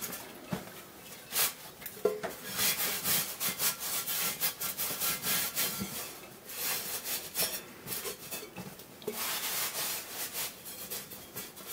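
A cloth towel rubbing over an enamelled grill griddle plate as it is dried by hand. The rasping comes in runs of brisk strokes with short pauses between them, and there are a few light knocks early on.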